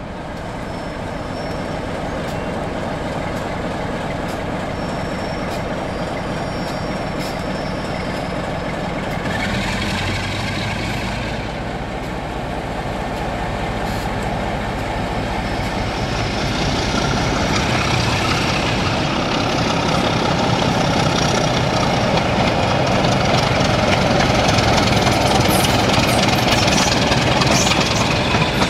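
Diesel locomotive engine sound from a sound-fitted OO gauge model diesel, running steadily and getting louder about halfway through, along with the rumble of the model train on the track.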